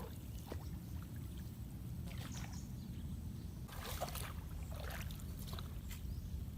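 A paddle dipping and splashing in shallow water as a small boat is paddled, in irregular strokes, with a steady low rumble underneath.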